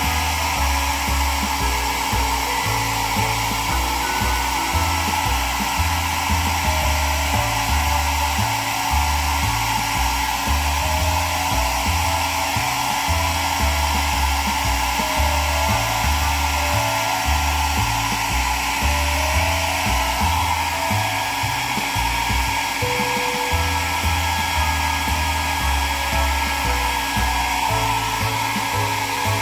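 Hair dryer blowing steadily as a pet's wet fur is dried after a bath, under background music with a changing bass line.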